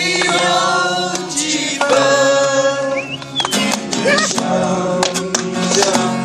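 Men singing a song to a strummed acoustic guitar, with long held sung notes over regular strums.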